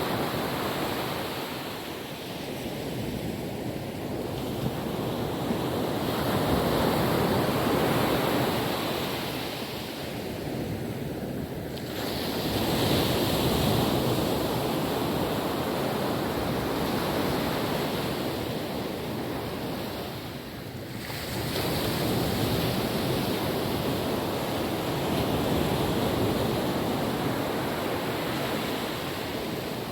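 Calm ocean waves washing onto a beach, the surf swelling and easing every several seconds.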